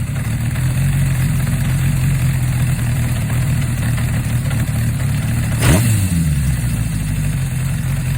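Honda CB550 air-cooled inline-four idling through a steel four-into-one header and a Moriwaki straight silencer. A little past halfway it gives one quick throttle blip, its pitch rising and dropping straight back to idle.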